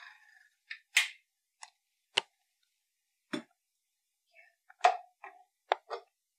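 Clicks and knocks from a KitchenAid tilt-head stand mixer being handled, about nine in all, spread out with silence between them, as the head is tilted back and the wire whisk is unhooked over the steel bowl. The mixer's whir dies away right at the start.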